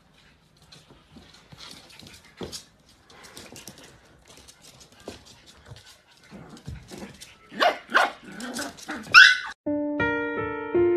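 Small black-and-tan puppy yapping in a quick run of high barks about eight seconds in, after scattered light taps and scuffles. Piano music starts near the end.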